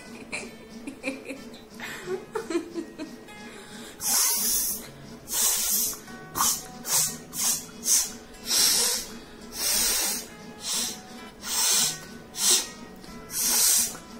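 A woman repeatedly blowing hard through her nose in short hissing bursts, about one a second. They start about four seconds in, a dozen or so in all.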